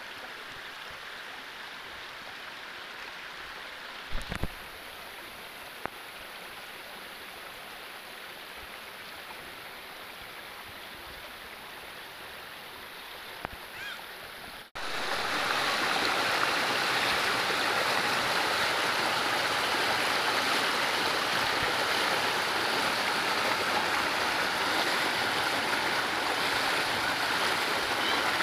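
Shallow river running over rocks, a steady rush of water, with a couple of brief knocks about four seconds in. About halfway through the sound cuts and comes back much louder and closer.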